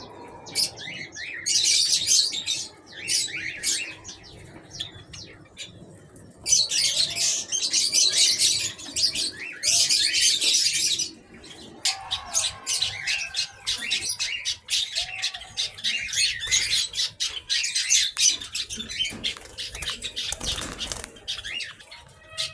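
A flock of small aviary birds chirping and chattering in dense, high-pitched bursts, with a few short lulls.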